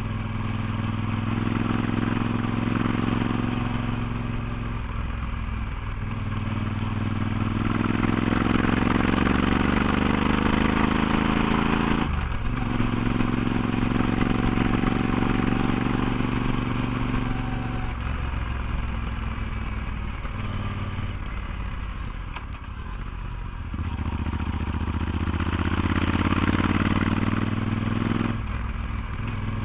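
Yamaha XT1200Z Super Ténéré's parallel-twin engine through a LeoVince slip-on exhaust with its dB-killer fitted, pulling uphill. The pitch rises as it accelerates and drops sharply at a gear change about twelve seconds in and again near the end, with wind rushing over the microphone.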